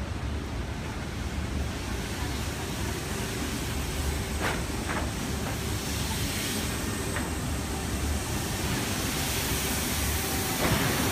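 Steady vehicle noise of city traffic, a low rumble under a hiss that grows louder over the second half, with a few short clicks near the middle.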